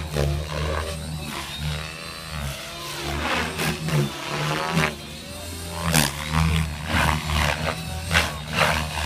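Radio-controlled model helicopter flying and maneuvering overhead: a steady drone of rotor and motor whose pitch sweeps up and down as it passes and turns.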